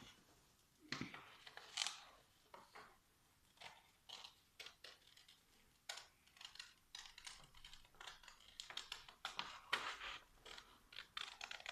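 Scissors snipping as a circle is cut out: a string of short, sharp snips at uneven intervals, sparse at first and coming more often and louder in the last few seconds.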